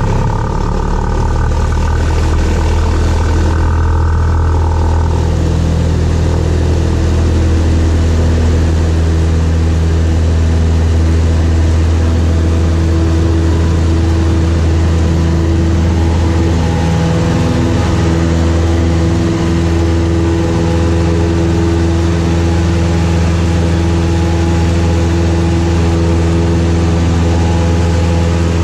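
Cessna 172's engine and propeller at full takeoff power, a loud steady drone heard from inside the cockpit through the takeoff roll and lift-off.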